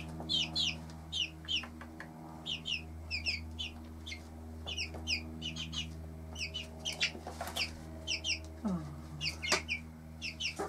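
Cuckoo Marans chicks peeping over and over, short high notes that fall in pitch and come in quick clusters, with the mother hen giving a low falling call about nine seconds in. A steady low hum runs underneath.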